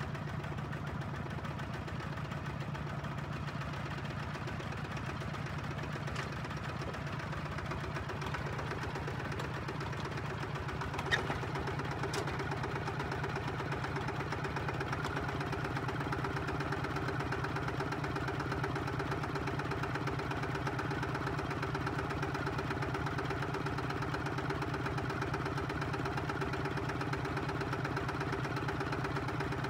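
Two-wheel walking tractor's single-cylinder diesel engine running steadily. There is a brief click about eleven seconds in, and after it the engine grows a little louder and fuller.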